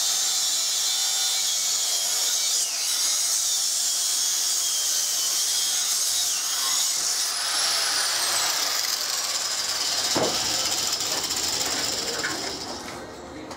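Handheld angle grinder grinding a piece of steel clamped in a vise, a steady high rasping whine. Partway through, one falling whine sweeps down, and the grinding stops about a second before the end.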